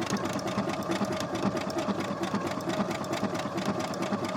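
Brother SQ9285 electric sewing machine stitching steadily at speed, its needle making a fast, even rhythm over a steady motor hum as it sews a dense zigzag (satin) embroidery stitch.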